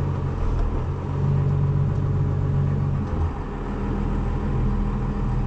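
Cummins 12-valve 6BT diesel in a 1973 Chevy C30 truck running under way, heard from inside the cab as a steady low drone. About three seconds in, the engine note drops and changes pitch.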